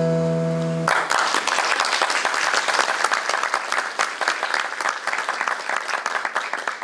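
The backing music's final held chord stops about a second in, and a hall audience breaks into applause. The clapping is dense for several seconds and dies away near the end.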